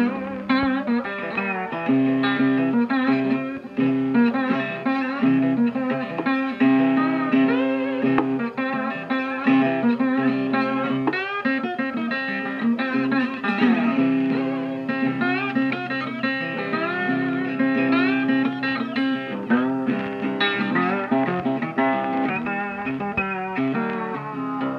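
Background music led by a plucked guitar, playing a steady run of notes and chords.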